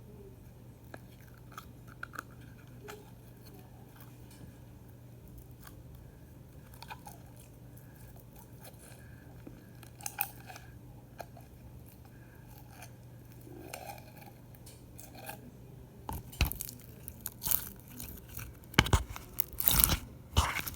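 Sticky slime being squished and stretched by hand, giving soft scattered clicks and pops that grow louder and denser over the last few seconds.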